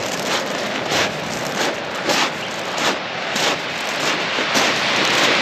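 Footsteps crunching on shingle, about one and a half steps a second, over a steady rushing noise that grows louder near the end.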